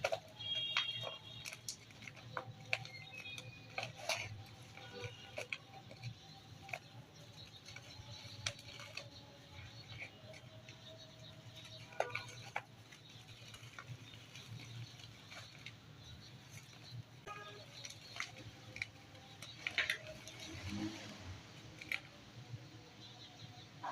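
Dry dirt crumbling: irregular crunches and crackles, with a few sharper cracks standing out.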